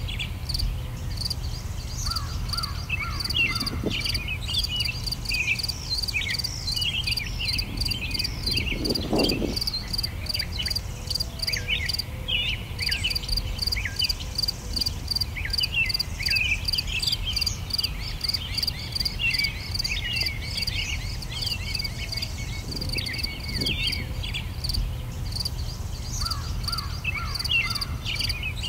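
Outdoor birdsong: many short, high, gliding chirps from small birds over a fast, even, high-pitched pulsing and a steady low rumble. A harsher, lower call comes about nine seconds in.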